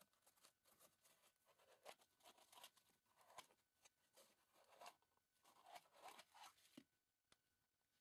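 Faint, irregular rustling, scraping and a few clicks from a hand handling a white foam packing block at the edge of a new dishwasher's door, over a faint steady high tone.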